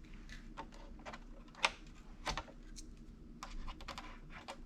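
Scattered light clicks and taps of small hard parts being handled while an RC buggy is taken apart by hand, with two sharper clicks near the middle.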